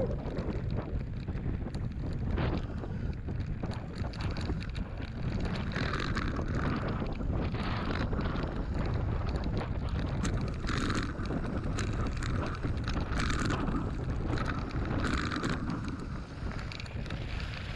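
Wind buffeting the microphone on a fast mountain-bike descent, with knobbly tyres on a stony dirt track and frequent small clicks and rattles from the bike.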